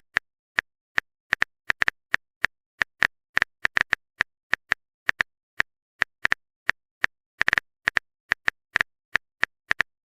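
Typing sound effect: short, sharp clicks at an uneven pace of about three to four a second, with dead silence between them.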